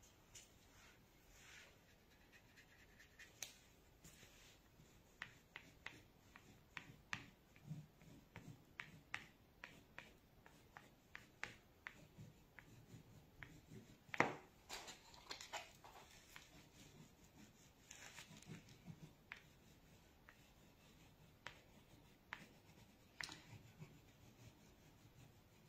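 Faint, short scratches of a water-soluble crayon drawing strokes on paper, irregular throughout, with one louder knock about halfway through.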